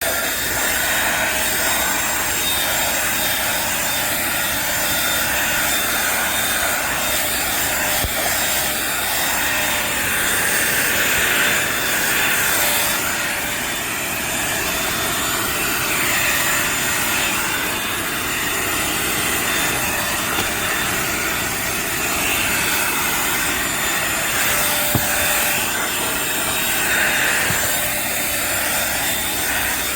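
Dirt Devil Simpli-Stik stick vacuum running steadily, a motor whine over a rush of air that swells and dips every few seconds.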